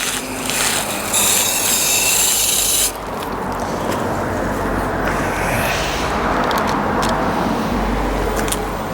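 Garden hose spraying water through a split system air conditioner's small mesh filter at medium pressure, a steady hiss that is brighter for a couple of seconds near the start, then duller.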